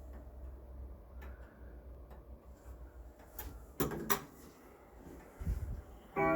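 1930s Junghans grandfather clock ticking faintly, then two sharp mechanical clicks about four seconds in and a low thud a moment later from the striking mechanism before the hour strike. The first ringing strike comes in right at the end.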